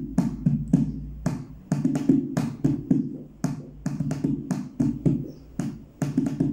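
Hand drumming on an improvised drum made from a recycled container: a steady rhythm of open-hand strikes, about three to four a second, each a short deep note.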